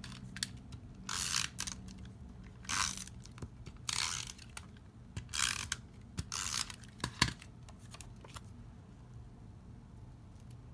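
Paper and card being handled on a desk: about five short papery swishes, each about half a second long, then a few light clicks about seven seconds in.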